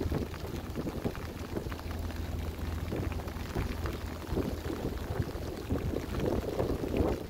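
Water splashing and gurgling against a sailboat's hull, an irregular crackly wash over a steady low rumble.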